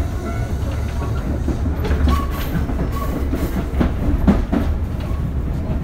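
Tobu 8000-series commuter train running, heard from inside the passenger car: a steady low rumble with a few sharp wheel clacks over rail joints in the middle of the stretch.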